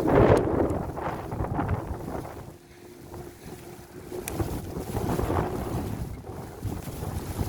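Wind buffeting the microphone in gusts on a moving bicycle in a snowstorm, with a faint steady hum underneath. The buffeting eases for a moment about two and a half seconds in, then picks up again.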